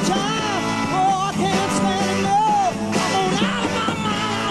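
Live psychedelic rock band playing, with a wavering sung vocal line over the instruments.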